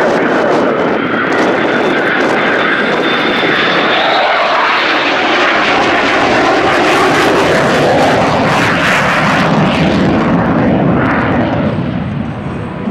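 F-22 Raptor's twin F119 turbofan engines, loud jet noise as the fighter flies past overhead. A high whine sounds over it in the first few seconds, then the noise drops in pitch as it passes and eases off near the end.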